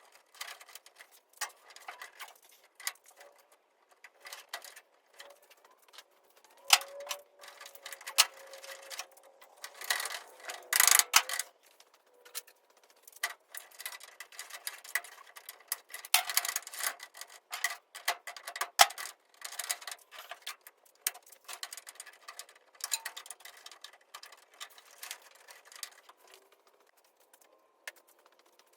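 Hand tools working on an early Ford Bronco's dash: irregular clicking, tapping and small metal clatter as knobs, radio and harness fixings are worked loose, with louder bursts of knocking about 10 to 11 seconds in.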